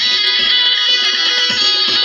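Loud dance music: a bright, many-toned melody with a plucked-string sound over a beat of deep bass hits that fall in pitch, about two a second.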